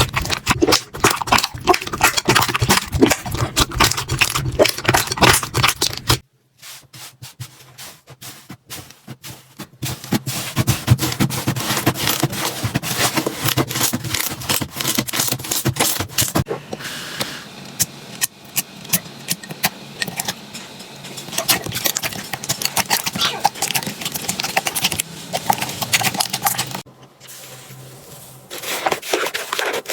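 Slime being squeezed and poked by hand, giving dense crackling clicks and pops. The texture changes abruptly several times, going much quieter about six seconds in and again for a moment near the end.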